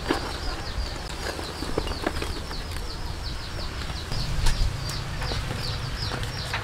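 A bird calling over and over in short, high, falling chirps, several a second, with a few clicks and a low knock about four seconds in as the charred banana-trunk wrapping holding the fish is lifted off the charcoal and set down.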